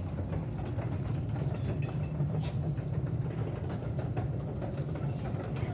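A Chamberlain 1/2 horsepower chain-drive garage door opener running steadily as it lifts the door, its motor humming under the clatter of the chain and the door rolling in its tracks.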